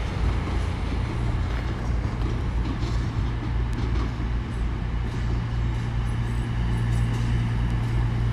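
CrossCountry Class 220 Voyager diesel train running in slowly, its underfloor diesel engines giving a steady low drone that strengthens about a second in as it draws closer.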